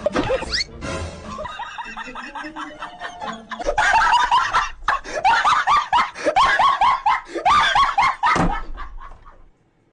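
Background music that cuts off shortly before the end.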